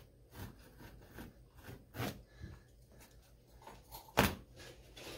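Carpet being cut at a seam with a utility knife and worked loose by hand: faint scraping and rubbing with a few short noises, and one loud sharp sound about four seconds in as the carpet edge is pulled.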